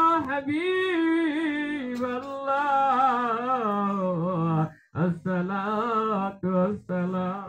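Devotional chanting of Arabic salutations to the Prophet: a single voice sings long notes that bend up and down, pausing briefly for breath about five seconds in.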